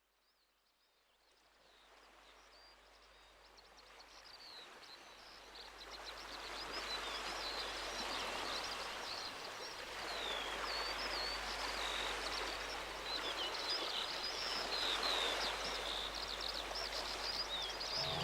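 Nature ambience fading in from silence over the first several seconds: many birds chirping over a steady rushing background noise.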